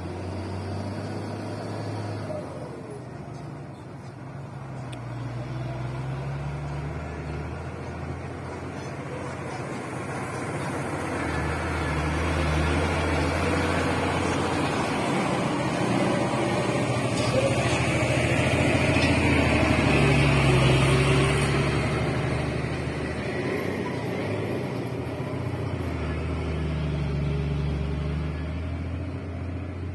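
Heavy diesel trucks grinding slowly along a sandy dirt road, their engine notes rising and falling as they labour over the loose sand. The sound grows as one passes close, loudest about two-thirds of the way in, then eases off.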